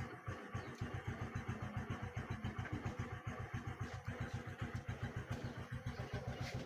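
A small engine idling steadily, with an even chugging pulse of about ten beats a second.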